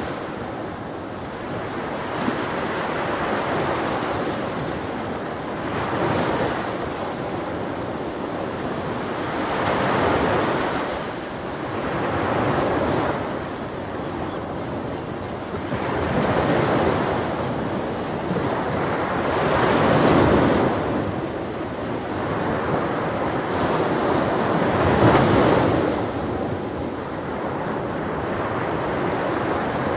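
Ocean surf: waves breaking and washing up the beach in swells every few seconds, with wind buffeting the microphone.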